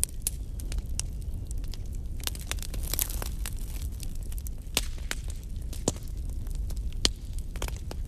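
Burning wood crackling: irregular sharp pops and snaps over a steady low rumble of the fire, with a louder pop about five seconds in and another about seven seconds in.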